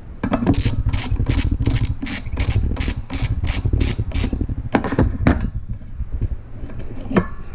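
Ratchet wrench clicking steadily, about three clicks a second for some four seconds, followed by a few separate metallic knocks.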